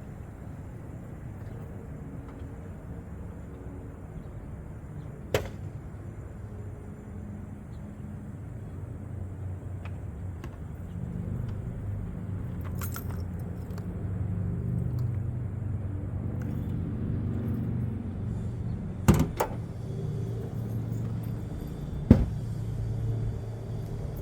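Car engine running at low speed, a steady low hum that grows louder past the middle. Three sharp clicks or knocks come through it, one about five seconds in and two close together near the end.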